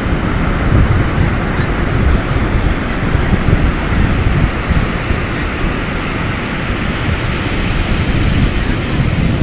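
Ocean surf rushing and breaking, with wind buffeting the microphone.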